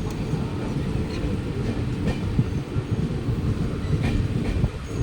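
Train running along the track: a steady low rumble with a few sharp clanks from the wheels and rails, about two seconds in and again about four seconds in.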